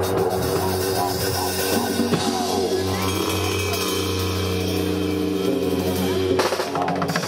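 Street percussion on a kit of barrel drums and large cymbals: drum strokes over steady ringing tones, with a flurry of sharper strikes near the end.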